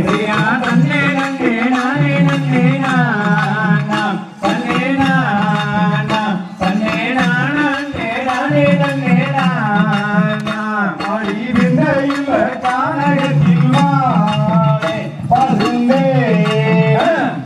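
Valli kummi folk song: a voice singing in long, bending lines over a steady drum beat, with brief breaks between sung phrases.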